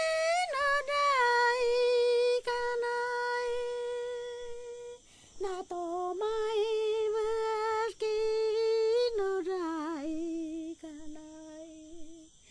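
A lone female voice singing a slow, unaccompanied melody in long held notes with a slight waver. It breaks off briefly about five seconds in and grows quieter near the end.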